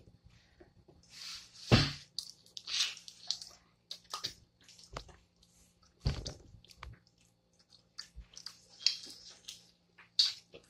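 Wet Cajun boiled peanut shells being cracked and pried open by hand and the peanuts eaten, making irregular short squishy cracks, clicks and chewing sounds. Two louder knocks stand out, one about two seconds in and one about six seconds in.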